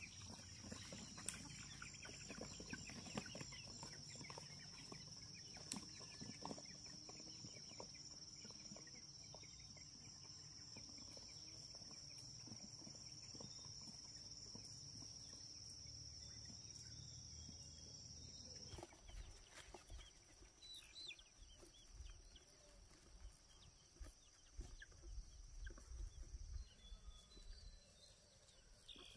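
Faint clucking of chickens carried in woven bamboo cages. A steady high-pitched tone runs behind them and cuts off about two-thirds of the way through.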